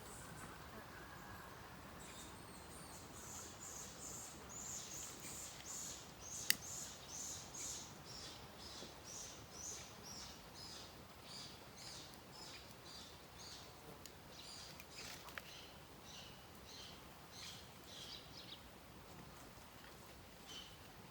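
A bird calling in a long series of short, high notes, about two a second, the notes settling lower in pitch as the series goes on. A sharp click about six and a half seconds in, and a fainter one later.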